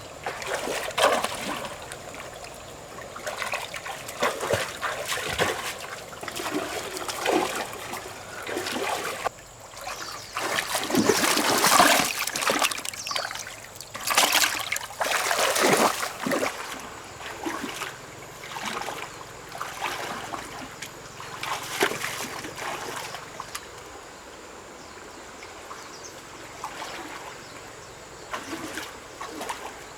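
Water splashing and trickling in uneven bursts, heaviest from about a third of the way in to just past the middle, then settling to a quieter steady trickle near the end.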